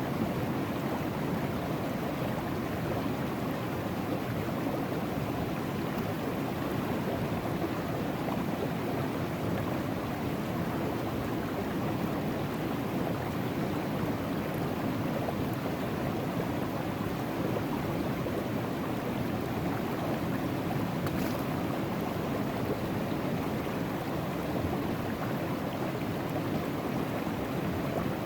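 River water rushing steadily through a sluice box set in the current, washing gravel and fines over the riffles and mat.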